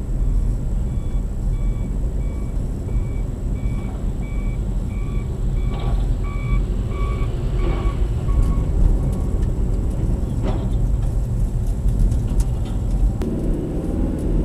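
Reversing alarm on roadwork machinery beeping about one and a half times a second, growing louder and then stopping about eight seconds in, over the steady rumble of a car driving past.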